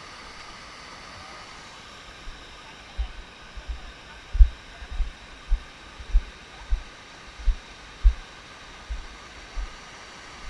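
Steady rush of falling water, with irregular deep thumps about one or two a second from about three seconds in.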